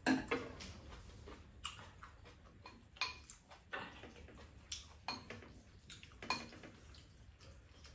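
Spoons clicking and scraping against ceramic bowls as rice is stirred and scooped, in light irregular knocks.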